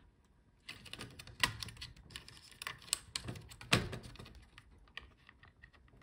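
Small, irregular plastic clicks and scrapes of a plastic spudger and fingertips working a speaker cable's connector loose from its socket on a laptop motherboard, with two louder clicks among them.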